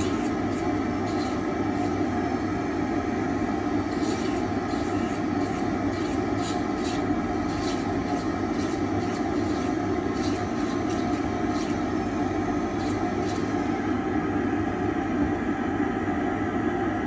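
Dental-lab handpiece with a small disc grinding a milled zirconia full-arch bridge, over the steady running of the dust-extraction unit. Short scratchy bursts come and go as the disc touches the zirconia, in clusters about 4, 6 and 10 to 13 seconds in.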